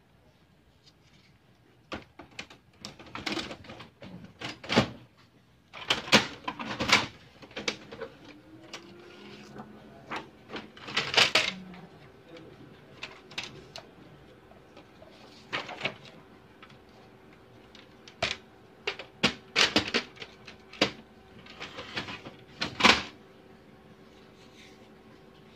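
Plastic clicks, snaps and knocks of a laser printer's covers and paper tray being handled and pushed shut, in irregular bursts. About a third of the way in a low steady hum rises into place and holds underneath.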